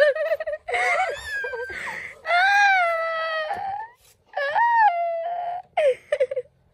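A baby whining and crying in a string of drawn-out, high-pitched wails with short breaks between them.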